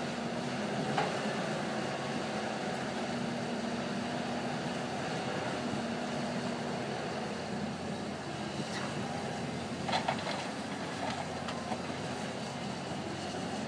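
Heavy diesel machinery running steadily: dump trucks and an excavator working, with a few short knocks about a second in and around ten seconds in.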